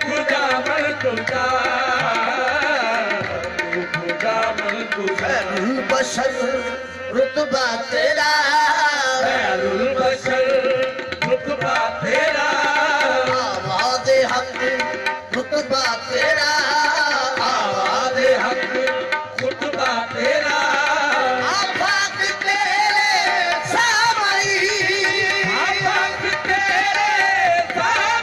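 Qawwali singing of a naat, voices carrying a wavering melody over steady tabla drumming.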